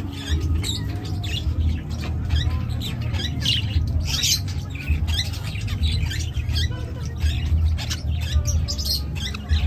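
Many small birds chirping and squawking in quick succession over a steady low rumble.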